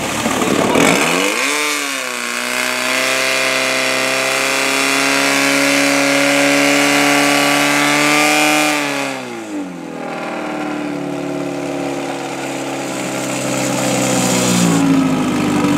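Portable fire pump's petrol engine revving up to full throttle about a second in and holding steady while it drives water through the attack hoses. Its pitch drops back sharply at about nine and a half seconds, then rises slightly again near the end.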